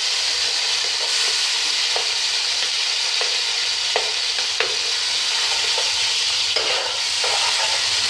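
Sliced onions sizzling steadily in hot oil in an aluminium pot, with a few light clicks and scrapes of a metal spatula against the plate and pot as the onions are pushed in and stirred.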